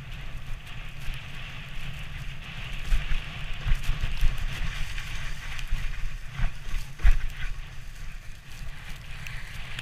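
Wooden sledge runners hissing and scraping over packed snow on a fast descent, with wind rumbling on the microphone and a few bumps about three and seven seconds in.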